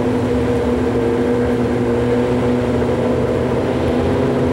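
Engines of two drag-racing sport motorcycles staged at the start line, held at steady revs while waiting for the lights: a loud, even engine drone at a constant pitch.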